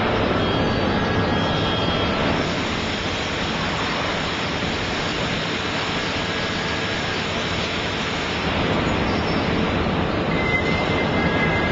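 Steady mechanical running noise of a forklift working a hydraulic reel clamp down onto a stack of steel coils, with a thin high whine joining near the end.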